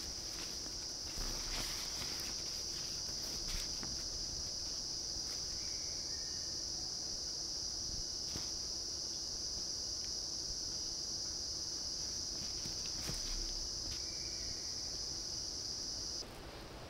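Forest insects droning in one steady high-pitched note, which stops suddenly near the end. A few soft crunches and rustles of footsteps and handling on dry leaf litter lie beneath it.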